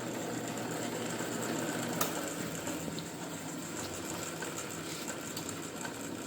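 Angle-cutting machine running steadily, a low mechanical hum with one sharp click about two seconds in.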